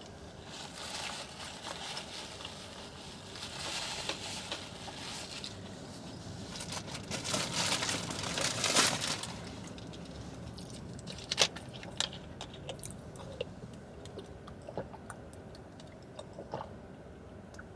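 Close-miked chewing of a cheeseburger. It is louder and busier about seven to nine seconds in, then thins out to scattered small mouth clicks.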